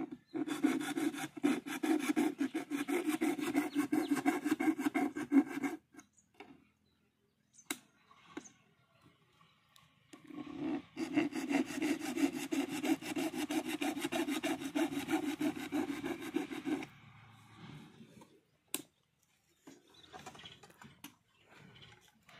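Screwdriver working screws into the solar panel bracket of an all-in-one solar street light: two long spells of fast, rasping strokes, the first about five seconds and the second about six, with a few single clicks in the pause between them.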